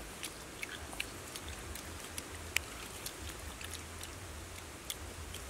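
Close chewing and small scattered clicks from eating grilled fish picked apart by hand, with one sharper click about two and a half seconds in, over a low steady rumble.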